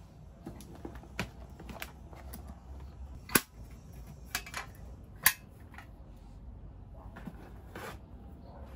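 Hard plastic desk items being handled and set down: scattered sharp clicks and taps, the two loudest about two seconds apart, over a low steady hum.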